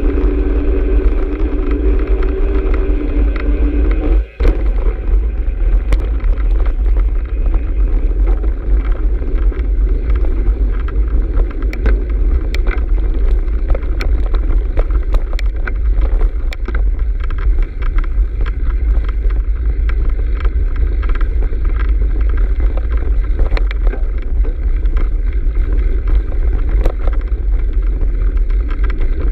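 Bicycle ridden fast along a dirt trail: heavy wind rumble on the microphone, with rattling clicks as the bike goes over bumps. A steady hum during the first few seconds stops at a brief dropout about four seconds in.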